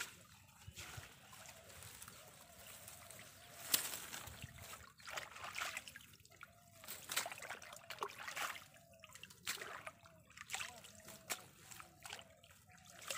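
Shallow muddy water sloshing and splashing in short, irregular spells, with trickling, as a hand gropes through it for fish.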